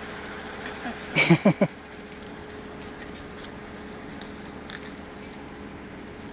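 Steady outdoor background noise with a faint steady hum, broken about a second in by a quick run of three or four short pitched calls or voice sounds.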